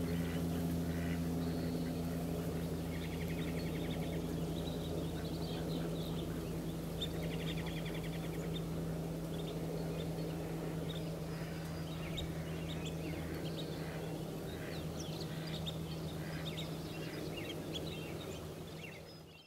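Short bursts of high, fast bird trills and scattered sharp clicks of a camera shutter snapping away, over a steady low hum.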